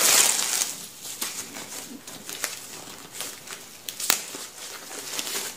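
Protective wrapping being pulled off a new tote bag's handles: crinkling and rustling, loudest in the first half-second, with a few sharper crackles after.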